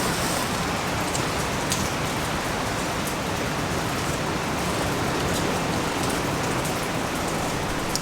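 Steady heavy rain falling outside the cave, with a few faint ticks scattered through it.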